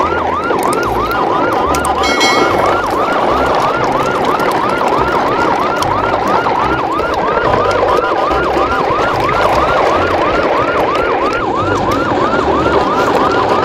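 Electronic siren sounding a fast, repeating rising whoop, about three sweeps a second, steady throughout.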